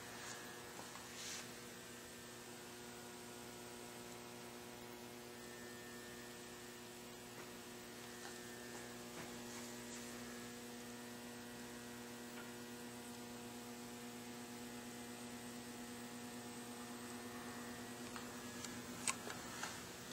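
A steady electrical hum with a few faint clicks, one about a second in and a sharper one near the end.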